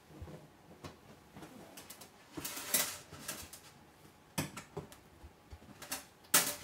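Snap rivets and a cabinet panel being handled and pressed into place by hand: a series of short clicks and scrapes, the loudest cluster about three seconds in and another sharp click near the end.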